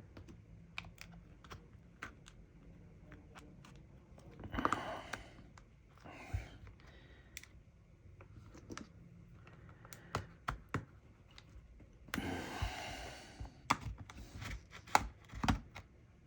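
Small, sharp plastic clicks and taps, irregular and scattered, as pry tools work the Samsung Galaxy A03s's plastic frame off its clips, with two longer scraping stretches about four seconds in and again at about twelve seconds.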